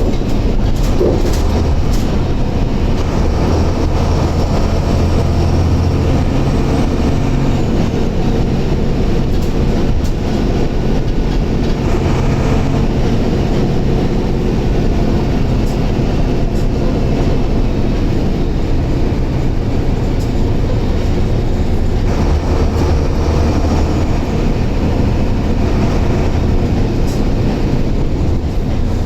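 Mercedes-Benz OF-1721 bus's six-cylinder turbo-diesel engine running under way, a steady low drone that swells and eases, mixed with road and body rattle.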